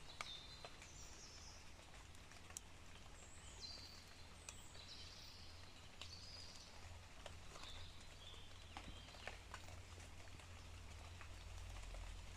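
Faint outdoor ambience of birds chirping: short high calls repeated throughout, over a low steady rumble, with a few light clicks scattered through.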